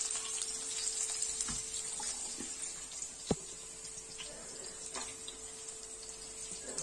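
Tempering of seeds and chopped green chillies sizzling in hot oil in a kadai: a steady hiss, with light clicks and scrapes of a wooden spatula and one sharp knock about three seconds in.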